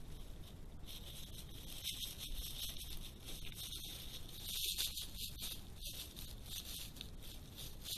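A badger rummaging right at the trail camera: close, irregular rustling and brushing as its fur rubs against the camera and the leaf litter, heaviest around the middle, over the camera's own steady hiss.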